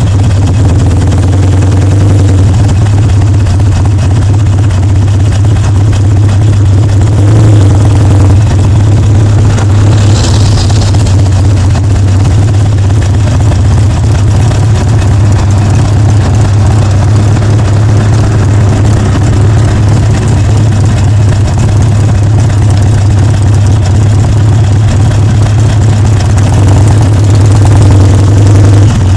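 Harley-Davidson Sportster Seventy-Two (XL1200V) 1200 cc air-cooled V-twin running steadily under way through loud exhaust pipes, mixed with wind noise on the bike-mounted microphone. A short higher hiss comes about ten seconds in.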